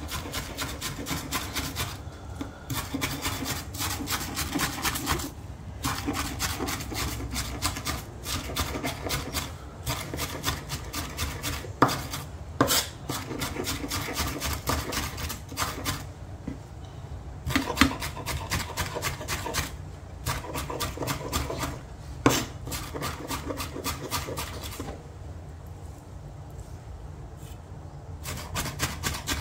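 Large knife finely mincing red onions on a wooden cutting board: a fast, continuous run of blade knocks on the wood, broken by a few short pauses and a handful of louder single chops, softer near the end.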